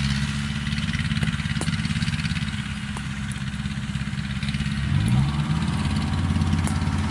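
Crawler rice combine harvester's engine running steadily, its pitch rising briefly about five seconds in.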